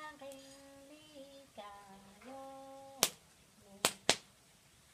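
A Hmong woman singing slowly in long held notes for about three seconds, then a wood fire popping sharply three times, throwing sparks.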